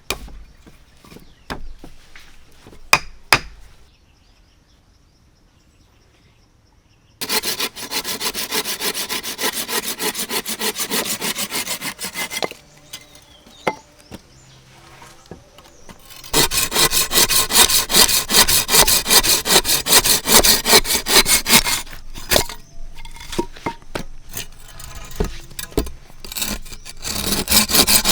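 A few knocks on wood, then a hand saw cutting wood in rapid back-and-forth strokes. The sawing comes in three spells with short pauses between them.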